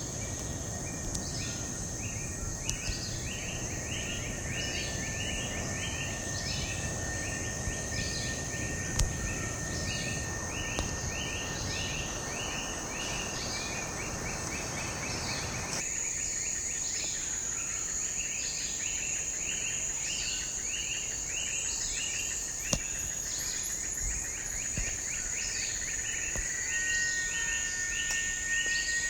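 Tropical insects calling together: a constant high-pitched whine with a pulsed chirring call repeating about once a second, over a steady thinner tone. A low rushing background noise cuts off abruptly about halfway through.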